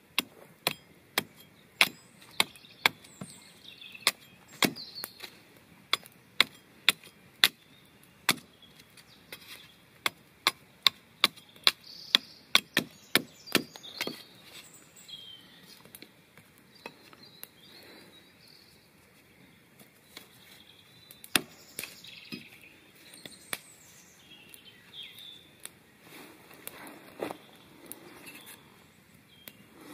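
Axe chopping into a log, a quick run of sharp strikes about two a second, which stop about halfway through; after a pause there is one more hard strike and then a few fainter knocks.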